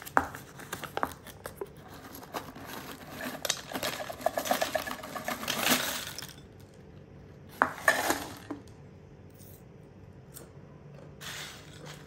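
Thin, crisp purple sweet potato chips poured from a canister into a ceramic dish: scattered clicks, then a few seconds of dense dry clattering as the chips slide out and land, and a shorter clatter about eight seconds in.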